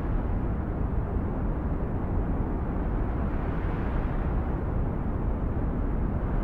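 A steady, low rumbling rush of noise with no distinct events: a constant ambient sound bed.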